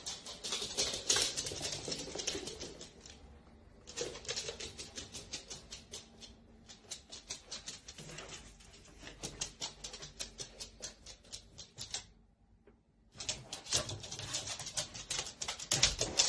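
A corgi's claws clicking rapidly on a hard wooden floor as it trots and runs, with a short pause about twelve seconds in.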